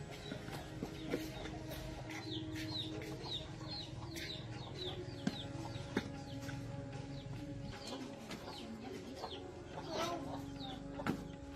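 Chickens clucking with small birds chirping in quick short falling notes, and a few sharp knocks scattered through.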